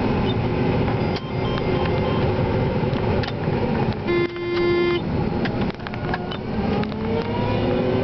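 Inside the cab of a John Deere 9500 combine harvesting corn: a steady drone of the diesel engine and threshing machinery. About four seconds in, a single steady tone sounds for about a second. Near the end, a machine whine slowly rises in pitch.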